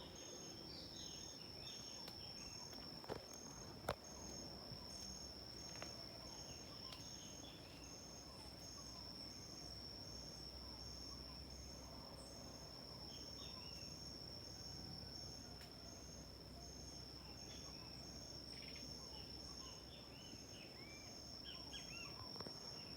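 Insects trilling: one steady high trill, and a second one pulsing about twice a second. Birds chirp briefly at the start and again near the end, and two sharp clicks come about three and four seconds in.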